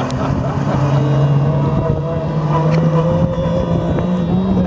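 Engine of a GAZ autocross race truck running hard on the track, its note climbing slowly and steadily in pitch as it accelerates.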